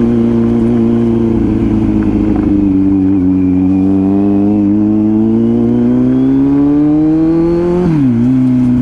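Kawasaki Z900's inline-four engine running under way, its note climbing steadily as the bike gathers speed, then dropping sharply near the end.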